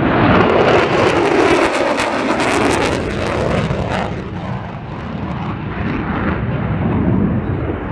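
F-35A Lightning II jet, its F135 afterburning turbofan engine, passing in a loud roar with a crackle in the first three seconds, then fading somewhat after about four seconds as it moves away.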